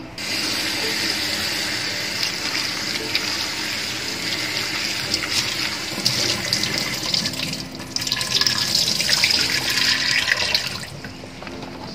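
Kitchen tap running into a bowl of sliced bitter melon in a stainless steel sink, with water splashing as hands rub the pieces. For the last few seconds the water pours off the tipped bowl into the sink, louder, then stops about a second before the end.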